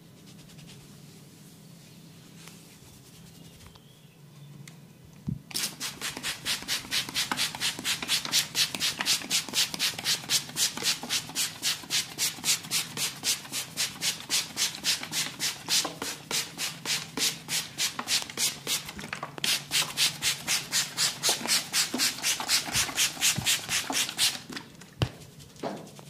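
Rhythmic rubbing strokes on oiled hair and scalp during a head massage, fast and even at about three a second. They start about five seconds in, after softer rubbing, pause briefly once and stop shortly before the end.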